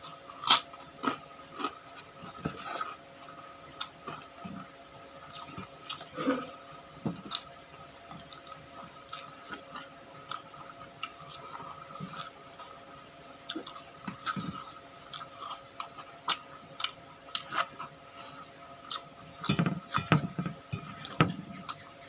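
A person chewing and eating food close to the microphone: irregular smacks and crunchy clicks, busiest near the end, over a faint steady hum.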